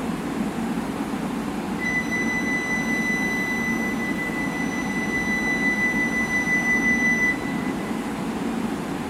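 E2 series Shinkansen standing at a station platform with a steady hum. From about two seconds in, a high, steady electronic tone sounds for about five seconds, then stops.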